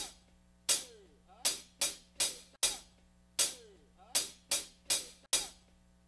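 Playback of a rock recording's drum part: about a dozen sharp drum-kit cymbal and hi-hat strikes, each ringing briefly, in a repeating uneven rhythm, a few of them with a low thump under them.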